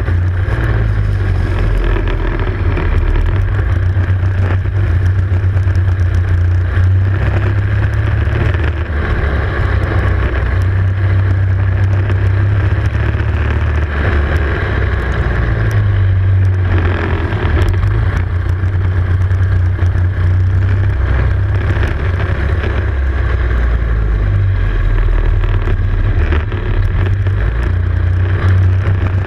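Racing kart engine heard on board at racing speed, running hard, its revs dropping and climbing again through the corners.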